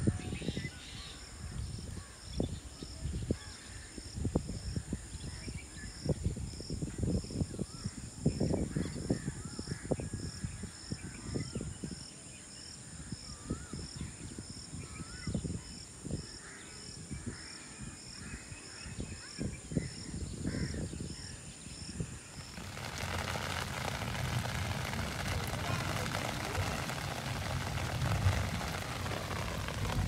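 Birds calling, crows cawing among them, over a steady high pulsing drone and frequent low thuds of wind buffeting the microphone. About 23 seconds in it cuts to the steady hiss of rain falling on wet concrete.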